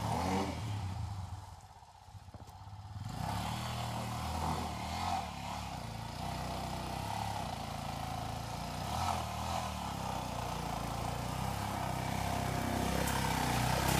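Off-road motorcycle engine running as the bike climbs a steep dirt hill. After a near-quiet moment around two seconds in, it comes in about three seconds in and grows gradually louder as the bike nears the microphone.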